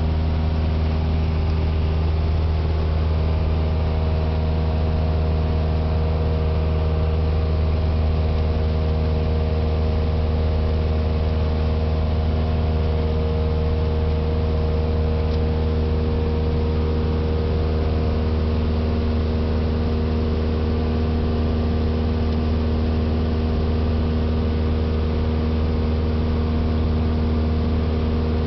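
Light aircraft's piston engine and propeller running at a steady cruise, heard from inside the cabin as a loud, unchanging low drone.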